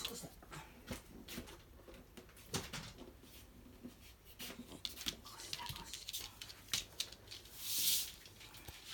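Scattered light clicks and rustles of a pet dog moving about, with one short breathy hiss a little under eight seconds in.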